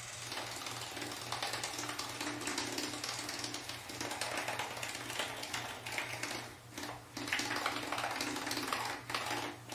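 Homemade electric toothbrush, a milk frother's small DC motor on two AA batteries, buzzing and rattling as its brush head scrubs teeth in a foamy mouth, briefly dropping out a couple of times past the middle. It runs a little bit weak on the 3 volts of the two AA cells.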